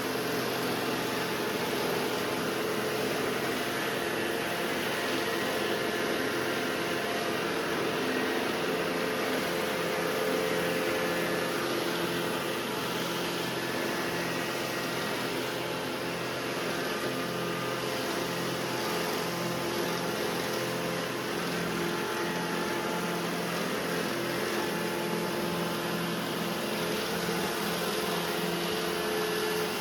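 Two robot vacuums, an iRobot Roomba j7 and an Ecovacs Deebot 920, running together: a steady motor and brush whir with several held tones.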